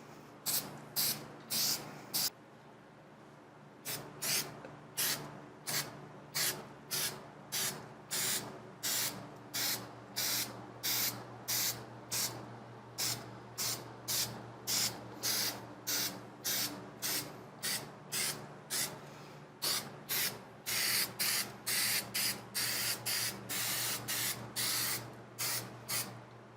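3M Super 77 aerosol spray adhesive being sprayed in short, quick hissing bursts, about two a second, with a short pause early in the run.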